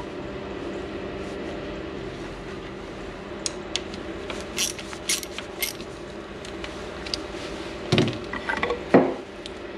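Valve cover bolts being run in on a motorcycle cylinder head with a small socket ratchet: a scattering of sharp metallic clicks, then a few louder knocks near the end as tools are handled on the bench, over a steady hum.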